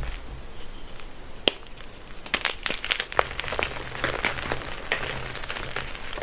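Gym chalk being crushed, giving a run of crisp crumbling crackles and snaps. One sharp snap comes about a second and a half in, and a dense cluster of crackles follows.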